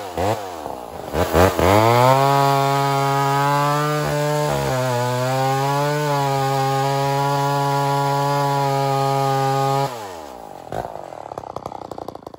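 A vintage 68cc Lombard Super Lightning two-stroke chainsaw cutting through a log at full throttle. Its revs dip and swoop as the chain bites into the wood, then hold steady through the cut with a brief sag partway. About ten seconds in, the throttle is released and the engine falls away.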